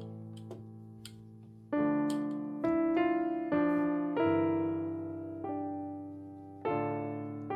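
Solo piano playing a slow Russian folk song melody. Chords are struck every second or so and left to ring and fade, with a longer held chord in the middle.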